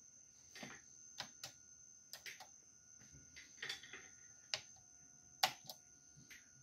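Key clicks on a Compaq LTE 286 laptop keyboard, about a dozen at uneven intervals, the sharpest about five and a half seconds in, over a steady faint high whine.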